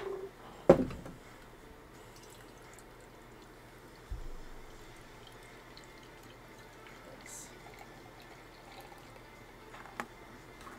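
Lightly carbonated hard cider poured slowly from an aluminium can into a glass mason-jar mug, a faint steady pour. A sharp knock comes about a second in, and a low thump around four seconds.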